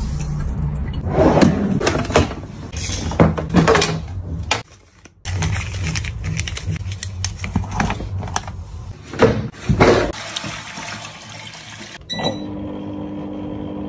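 Water running and splashing from a kitchen tap over a sponge, with wet handling knocks and squelches. About twelve seconds in, it cuts to a short electronic beep, and a foot spa starts up with a steady motor hum.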